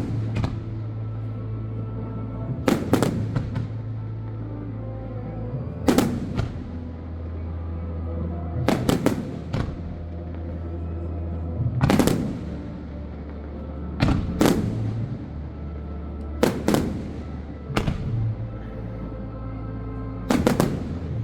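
Fireworks exploding in loud, sharp bangs every two to three seconds, some in quick doubles, over steady background music with long held notes.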